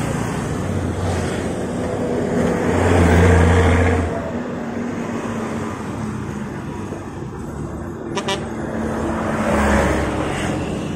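Road traffic: motor vehicles passing close by, the noise swelling and fading once about three seconds in and again near the end, with a brief rattle of clicks a little before the second pass.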